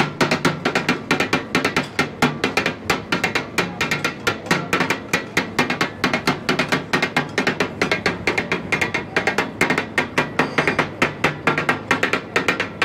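Two steel spatulas clattering and chopping on a large flat iron griddle (tawa) in a quick, uneven rhythm of metal strikes, several a second, as kebab karahi of tomatoes and mutton is chopped and mixed.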